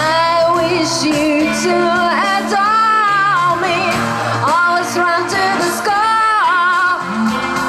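Live electronic pop song: a female lead vocal sings long held notes that slide between pitches, over steady sustained bass notes.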